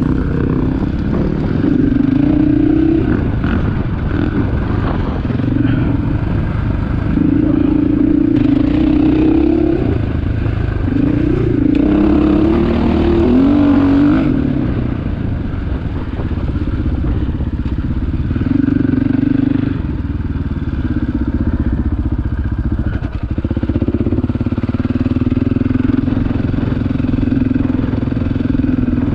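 Dirt bike engine running under way on a sandy trail, its pitch climbing and dropping every few seconds as the throttle opens and closes and the gears change.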